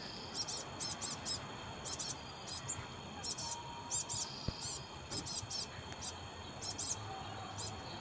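A small songbird giving short, high-pitched call notes, repeated irregularly about two or three times a second, over a faint steady high background.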